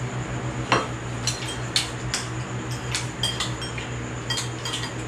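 Spoons clinking and scraping against soup bowls in irregular light taps while several people eat noodle soup, over a steady low hum.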